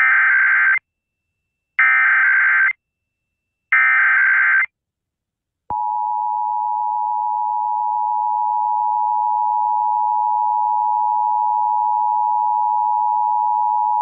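Emergency Alert System tones off AM radio: three short bursts of SAME header data, each about a second long and a second apart, then the steady two-tone EAS attention signal (853 and 960 Hz) starting about six seconds in. These tones open a Required Monthly Test.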